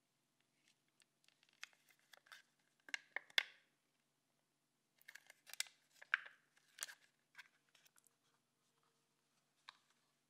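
Thin plastic yogurt cup crinkling and crackling as it is squeezed by hand, in irregular bursts that are loudest about three seconds in and again between five and seven seconds in.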